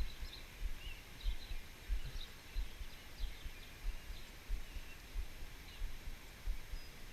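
Wind buffeting the microphone in irregular low rumbles, with faint short bird chirps in the background.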